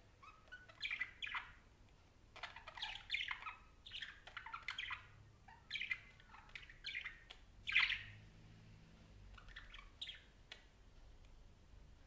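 Budgerigar chattering in a quick series of short chirps and squawks, with the loudest call about eight seconds in and a few fainter ones after it.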